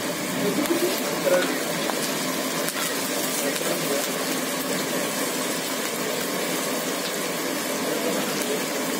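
Chicken 65 pieces deep-frying in hot oil in an iron kadai, the oil sizzling and bubbling steadily.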